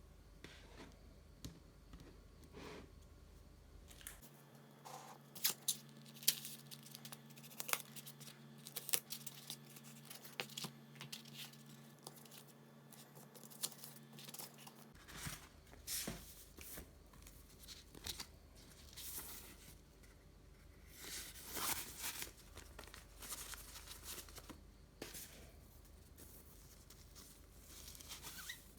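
Packaging being handled during an unboxing: paper or plastic wrap tearing and crinkling in short spells, with scattered light clicks and taps, busiest in two stretches.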